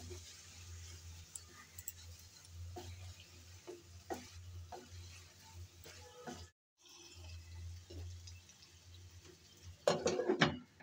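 Wooden spatula stirring and scraping mutton liver pieces through spiced masala in a metal pan, a soft stroke every second or so, over a faint sizzle and a steady low hum. Near the end a glass lid is set down on the pan with a brief clatter.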